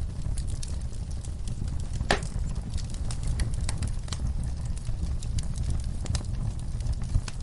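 Campfire crackling: burning wood giving scattered sharp pops and snaps, with one louder pop about two seconds in, over a steady low rumble.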